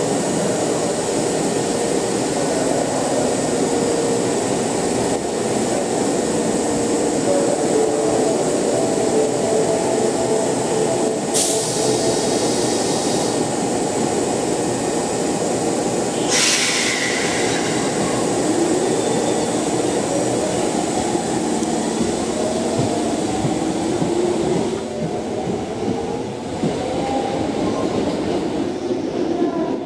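Electric metro trains at a station platform: the traction motors whine in tones that glide up and down, over the steady rumble of wheels on rails. Two short, sharp hisses come about a third of the way and halfway through.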